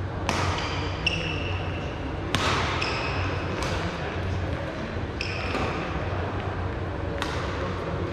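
A badminton singles rally: rackets strike the shuttlecock with a sharp hit roughly every one to two seconds, and shoes squeak briefly and high on the court floor after several of the hits.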